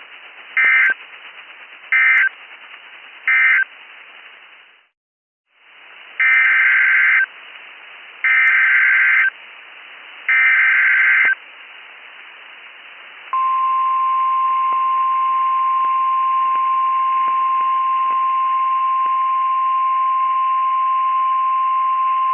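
NOAA Weather Radio alert signalling: three short bursts of SAME data tones (the end-of-message code), a brief dropout, then three longer SAME header bursts announcing a tornado warning. About thirteen seconds in, the steady single-pitch 1050 Hz warning alarm tone starts and holds for about nine seconds, over constant radio hiss.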